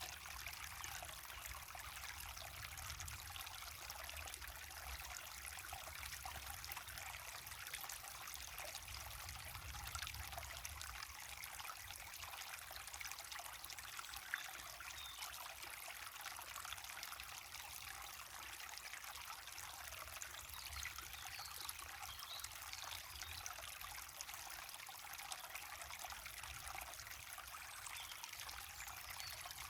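Water of a waterfall and river running steadily, with a continuous splashing and trickling.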